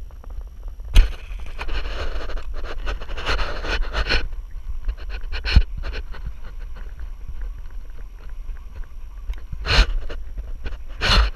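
Wind rumbling on the microphone, with a sharp snap about a second in followed by a few seconds of rustling. A further click comes a few seconds later, and two loud rustles near the end.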